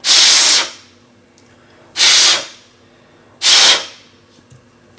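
A person blowing by mouth on a phone motherboard: three short breaths, each about half a second and roughly a second and a half apart. The blowing dries the board-washing solvent brushed onto a freshly soldered charging port so that it evaporates fully.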